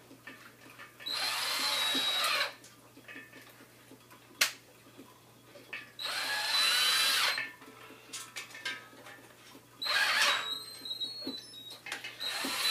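Electric drill spinning a mixing wand inside a glass carboy of wine, run in three short bursts of about a second each to begin degassing the wine by stirring out its CO2. A single sharp click falls between the first two bursts.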